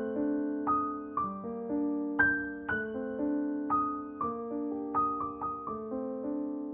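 Background piano music: slow, single struck notes, each ringing and fading before the next.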